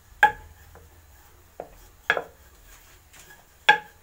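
A wooden rolling pin knocking sharply on the countertop while rolling out dough: four clacks, three of them loud, each with a short ring.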